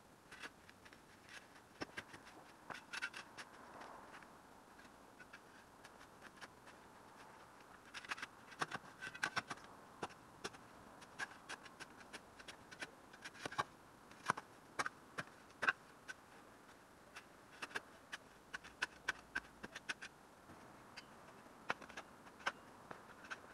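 A steel spade being driven into and levered through hard, compacted garden soil: a run of irregular gritty scrapes and sharp clicks, coming thicker and faster about a third of the way in.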